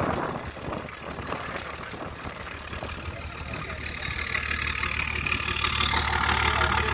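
Motorboat engine running at a steady low hum, under wind and water noise that grows louder from about four seconds in.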